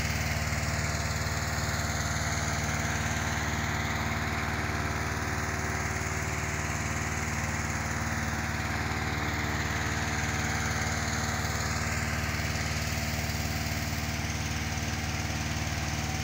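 Petrol-engine balloon inflator fan running steadily, a constant engine drone with rushing air, blowing cold air into a hot-air balloon envelope during cold inflation.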